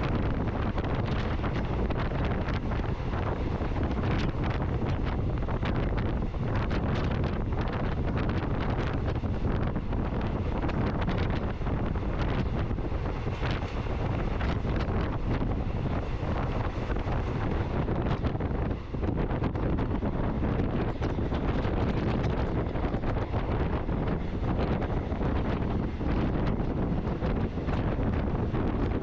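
Steady wind buffeting the microphone over the low rumble of a moving vehicle.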